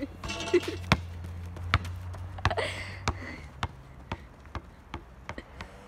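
A series of sharp taps on the asphalt court, irregular at first, then growing fainter and coming closer together. A low steady hum runs underneath and stops about three seconds in.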